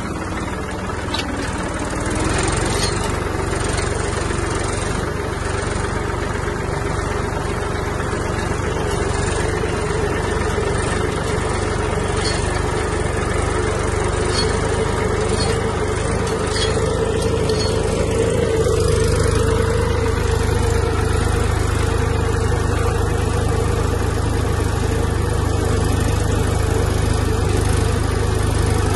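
Massey Ferguson 245 tractor's three-cylinder diesel engine running steadily under load while pulling a seed drill, heard close up from the driver's seat; the engine note rises slightly a couple of times.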